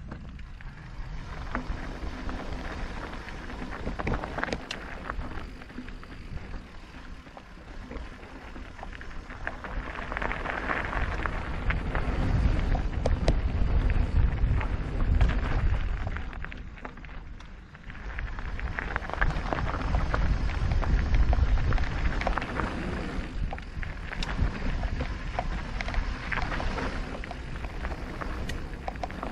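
Wind buffeting the microphone of a moving e-mountain bike, with tyres rolling over a rough, stony trail and the bike clicking and rattling. The rumble swells louder twice, as the bike picks up speed.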